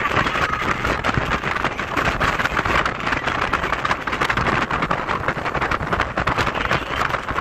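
Wind rushing and buffeting the microphone in the open bed of a moving pickup truck, over the truck's road noise.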